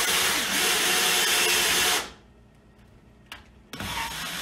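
Cordless drill spinning a 1.5-inch hole saw, cutting a pilot hole in a drywall ceiling; it stops sharply about two seconds in. After a click, the drill runs again briefly near the end.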